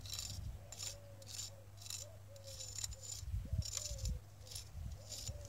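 A thin stick scratching letters into wet, gritty concrete on a fresh footing, in a string of short scraping strokes about two a second.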